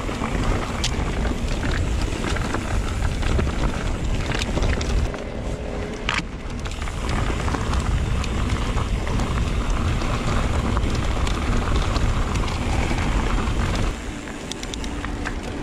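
Wind rushing over the bike-mounted camera and tyres rolling over a loose gravel track as a mountain bike descends at speed, with scattered sharp clicks and rattles from stones and the bike. The rush eases about a second and a half before the end.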